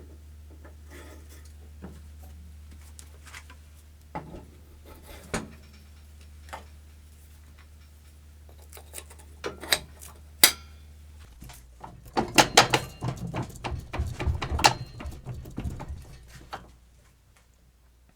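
Hand tools and metal parts being handled during a snow blower axle bushing repair: scattered clicks and knocks, then a busy run of clattering and clinking about twelve seconds in that stops near the end. A steady low hum underneath drops away partway through.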